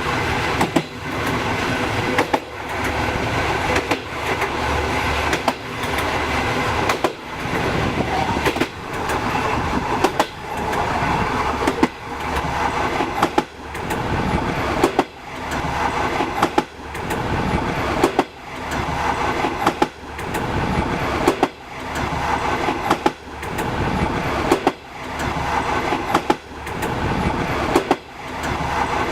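Passenger train wheels clattering over rail joints in a steady clickety-clack, a group of knocks about once a second over a continuous rolling rumble.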